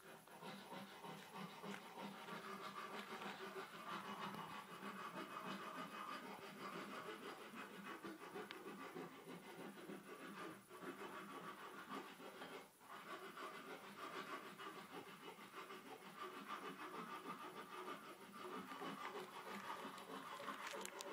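Honda Shadow 125's small V-twin engine idling steadily through its dual chrome exhaust pipes, faint and even.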